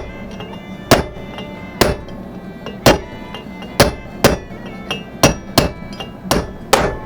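Hammer striking a driver to knock a front wheel bearing race out of its hub: about nine sharp metal-on-metal strikes with a ringing tone after each, spaced about a second apart at first and coming quicker in the second half.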